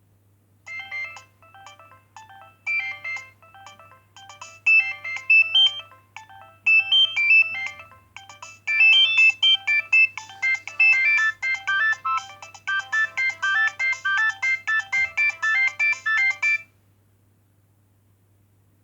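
Nokia 2610 mobile phone playing a polyphonic ringtone: a fast electronic melody of short notes, several at a time, which grows busier about halfway through and cuts off suddenly a couple of seconds before the end.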